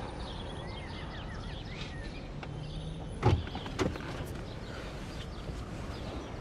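Steady low background noise with faint bird chirps, and two sharp clicks a little past three seconds in, about half a second apart.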